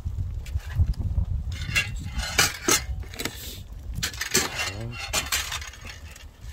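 Metal utensils clinking and clattering against cookware in a quick irregular series of sharp knocks, some of them ringing briefly.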